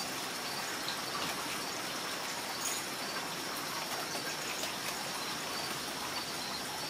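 Steady rushing noise like rain or running water, with a few faint scattered ticks.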